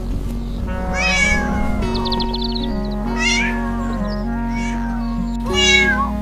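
Cats meowing, with three clear meows about two seconds apart and the last the loudest, over gentle background music.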